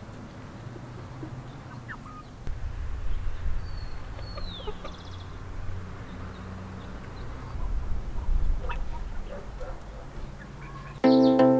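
Chickens clucking softly in a dirt yard, over a low rumble, with a high gliding chirp about four seconds in. Music starts abruptly near the end.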